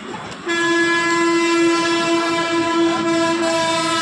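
A single long, steady horn blast that starts suddenly about half a second in and holds to near the end.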